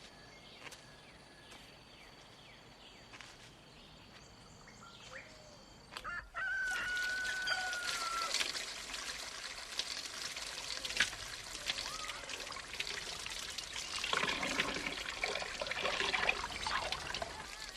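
Chickens calling, with what may be a rooster's crow, over water pouring and trickling. The water and the birds come in suddenly about six seconds in, and the calls grow busier near the end.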